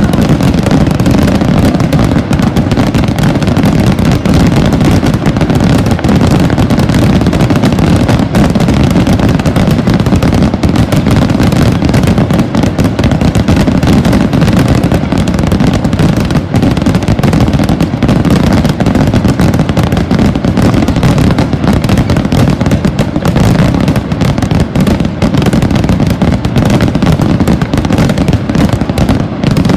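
Hundreds of firework rockets bursting in a continuous barrage, their bangs so dense they overlap without a break.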